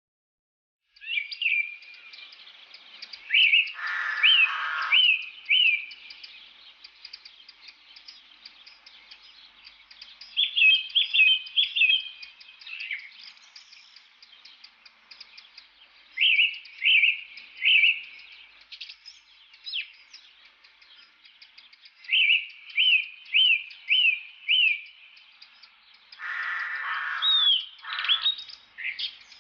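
Birds singing. One bird repeats a quick phrase of about four sharp, whistled notes several times. A harsher, lower chatter comes in twice, about four seconds in and again near the end, over faint background chirping.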